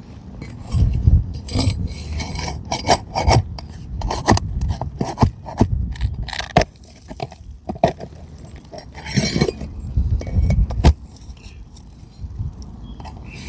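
Metal nail-pulling tool scraping and clinking against asphalt shingles and roofing nails as nails are pried out from under lifted shingles: a run of sharp clicks and knocks, with a longer scrape about nine seconds in.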